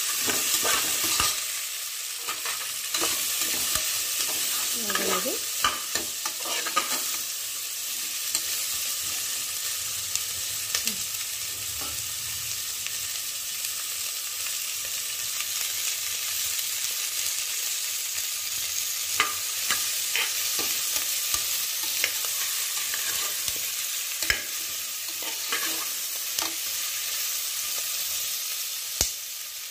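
Sliced onions, garlic and whole spices sizzling steadily in hot oil in an aluminium pressure cooker as they sauté soft. A steel skimmer ladle stirs them and scrapes and clicks against the pot now and then.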